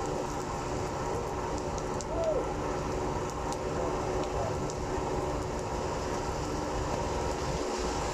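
A bus's diesel engine idling steadily, a low even drone, over the hiss of rain on a wet street. A brief faint squeak about two seconds in.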